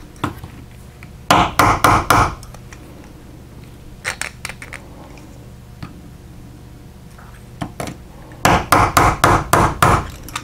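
Small hammer tapping quickly on a 3D-printed plastic clock gear assembly, in two short runs: about four taps a little over a second in, then six or seven near the end. This seats gear 4B onto the minute-hand arbor so that its slot goes onto the tab.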